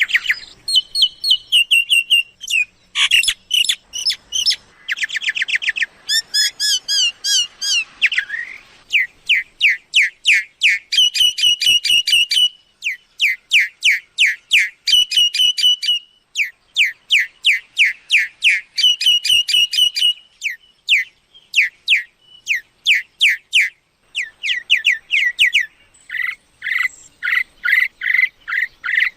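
Myna calling: long runs of quick, repeated sharp whistled notes, in trains of a few seconds each with short pauses between.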